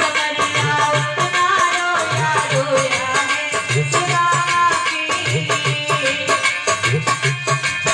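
Indian folk-style music played loud over a sound system, with a melody over percussion and a steady low drum beat about once a second.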